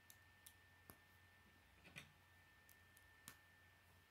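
Faint, sparse clicks of plastic K'nex pieces being handled and pushed together, about five in all, the loudest about two seconds in.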